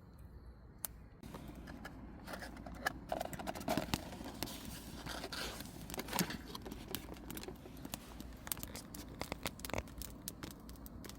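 Crinkling and rustling of something being handled, with irregular small clicks and scrapes, starting about a second in.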